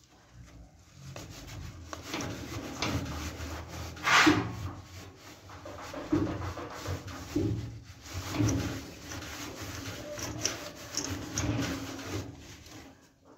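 Steel wool scrubbing the greasy metal of a stove, in irregular scraping strokes with a louder one about four seconds in.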